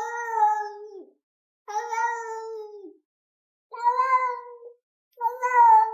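Domestic cat meowing four times in a row, each call about a second long and held at a fairly steady pitch, sagging slightly at the end, with short pauses between.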